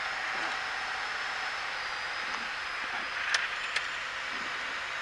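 Steady engine and airflow noise inside the cabin of a Piper PA-28 light aircraft in descent on approach, with two sharp clicks a little past the middle.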